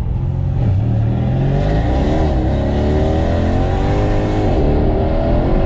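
Mercedes-AMG C63 S twin-turbo V8, fitted with upgraded Weistec W.3 turbos, accelerating hard, heard from inside the cabin. Its note climbs, drops back twice, at about two and a half seconds and near the end, as it changes up a gear, then climbs again.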